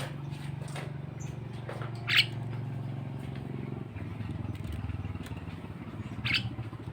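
Two short calls of a Javan myna (jalak kebo), about two seconds in and again near the end, over the steady running of a vehicle engine.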